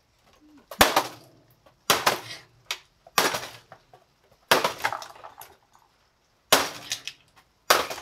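Small axe striking a plastic canister vacuum cleaner six times, one to two seconds apart. Each blow is a sharp crack of breaking plastic followed by a short clatter.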